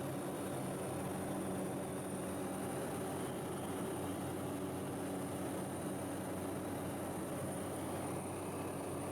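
Tour boat's engine running steadily: an even, low drone with a rushing background noise and a faint high whine.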